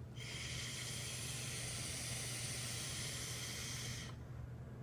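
Sub-ohm vape tank on a 40-watt box mod turned all the way up, hissing steadily as its coil fires through a long draw of about four seconds, then cutting off suddenly when the draw ends.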